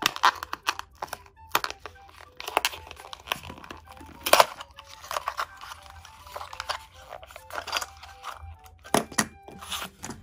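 A small cardboard box being torn open by hand, with paper crinkling from the insert inside and small knocks as it is handled, over quiet background music.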